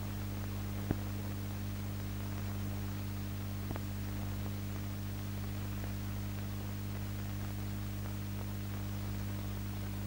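Steady low hum with hiss: the background noise of an old film soundtrack between narration lines. A sharp click about a second in and a fainter one nearly four seconds in.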